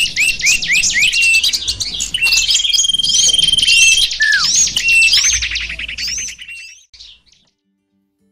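Songbird chirping loudly in a quick run of rising chirps, with overlapping trills. It fades and stops about seven seconds in.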